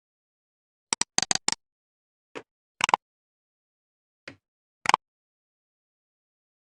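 Computer keyboard keys being pressed in sharp, irregular clicks: a quick run of about five keystrokes about a second in, then single key presses spaced out, two of them fainter.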